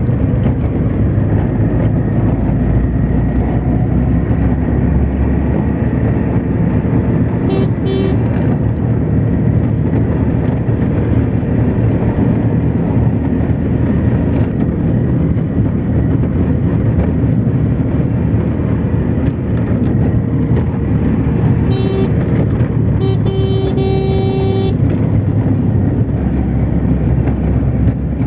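Steady low rumble of a moving vehicle, with a vehicle horn tooting briefly about eight seconds in and again around 22 seconds, then a longer horn blast of under two seconds.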